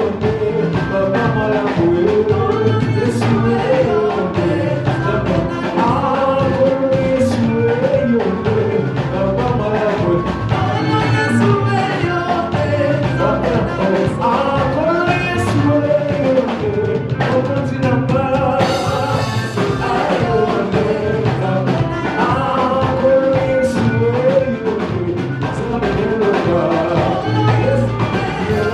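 Live praise-and-worship music from a church band, with a drum kit keeping a steady beat under instruments and singing.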